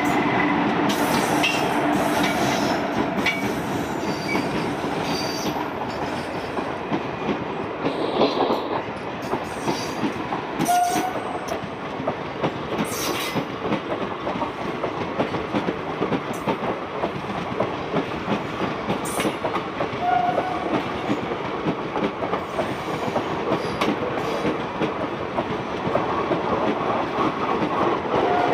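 Passenger coaches of an express train rolling past behind a WAP-4 electric locomotive: a continuous rumble with a run of wheel clicks over the rail joints. The locomotive's steady hum fades in the first couple of seconds.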